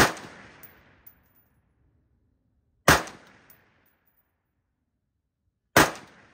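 Three single shots from a Sons of Liberty Gun Works M4-76 AR-15 rifle in 5.56 NATO, fired slowly from a bench rest about three seconds apart, each crack trailing off in a short echo.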